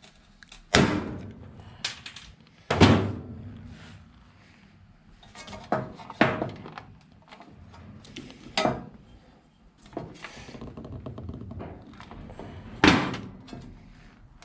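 Knocks and thunks of parts and tools being handled while a power cord reel is worked on, about seven spread unevenly, the loudest near three seconds in and another near the end.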